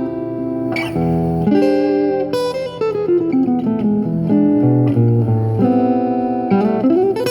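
Ovation Celebrity Elite CE48P acoustic-electric guitar being played, mixing strummed chords with single picked notes and a short low bass run in the middle.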